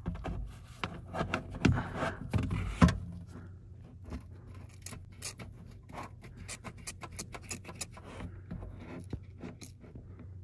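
Clattering handling noise of a plastic fluid bottle for the first few seconds, then a run of quick, light clicks and ticks as a plastic applicator bottle squirts automatic transmission fluid onto the trunk hinge bushings.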